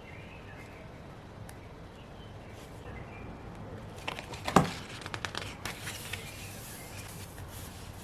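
Desk crafting sounds as a paper planner page is decorated: quiet handling, then a run of light clicks and taps with one sharp knock about halfway through.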